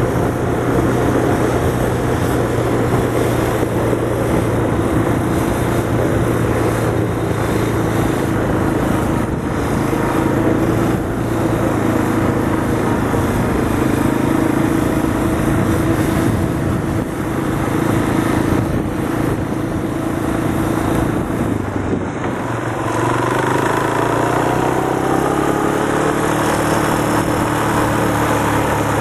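Quad bike (ATV) engines running at riding speed on a dirt track, with rushing wind on the microphone. About 22 s in the engine note dips briefly, then climbs again as the quad accelerates.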